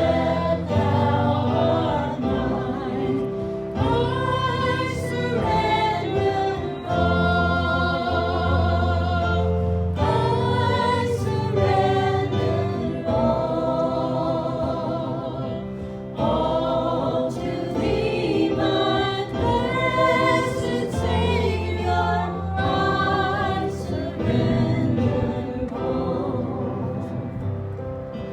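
A group of voices singing a gospel song together over instrumental accompaniment with a steady low bass line.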